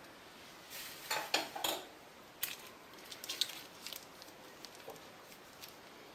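A spoon clinking against dishes: a quick cluster of knocks, then lighter scattered taps and clicks.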